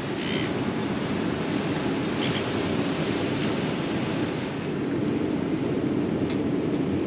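Steady ocean surf breaking and washing, mixed with wind noise.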